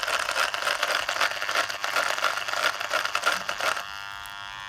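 Opened-up electric multi-tool's brushed motor running with a rough, crackling buzz from its carbon brushes sparking. Near the end it changes to a steadier, quieter electric hum. The brushes are worn out and the tool is beyond repair.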